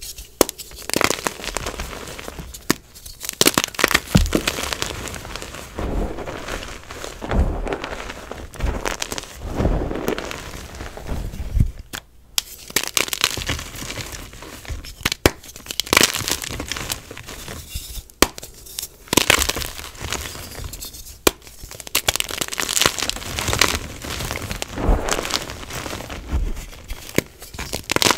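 Hands crushing and crumbling blocks of gym chalk in a bowl of chalk powder: irregular crunching and crumbling, with several sharp snaps as pieces break off.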